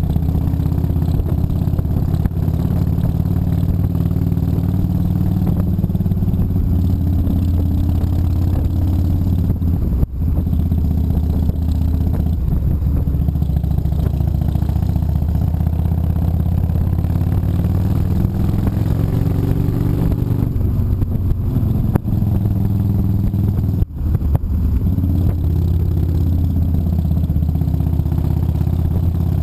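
Gilroy-era Indian motorcycle's V-twin engine running under way, heard from the rider's seat, its note rising and falling with the throttle through the bends. The sound dips briefly twice, about ten seconds in and again about two thirds of the way through.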